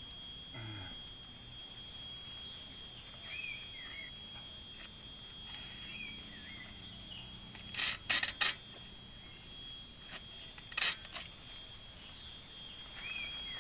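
Webbing strap being pulled and tied around a tree trunk to hang an aluminium folding table, with a few sharp clicks around eight seconds in and again near eleven. Behind it runs a steady high-pitched whine, with a few short chirps.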